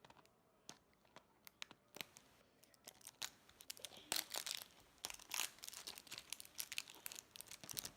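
Packaging crinkling and rustling as it is handled and torn: scattered light clicks at first, growing denser from about three seconds in.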